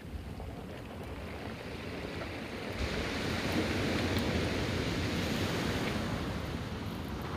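Sea surf washing over a rocky shore. A wave breaks and rushes in about three seconds in, making the wash louder and brighter.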